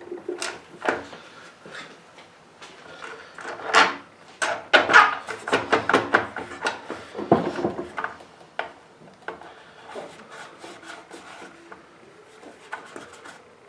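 Hands tugging and working at a stuck part on a push mower engine: irregular rubbing, scraping and knocking as the part is forced against something still holding it, loudest in the middle.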